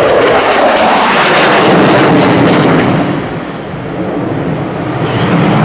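Saab JAS 39 Gripen fighter's single Volvo RM12 turbofan, a loud, crackling jet roar as it pulls through a display turn overhead. It fades a little about three seconds in, then builds again near the end.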